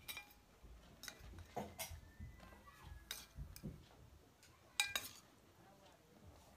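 Faint eating sounds as boiled pig head meat and bone are picked apart by hand: scattered small clicks and clinks on the plate, with a sharper clink about five seconds in.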